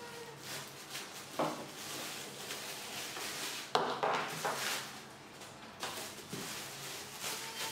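Plastic packaging crinkling and rustling as it is handled, with a few sharp clicks and knocks, the loudest about halfway through as a plastic bag is pulled off the grill's power cord and plug.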